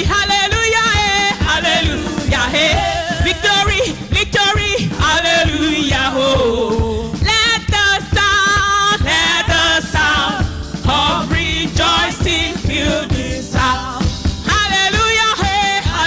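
A woman singing a gospel worship song into a microphone, her voice wavering with vibrato, over band accompaniment with a steady drum beat.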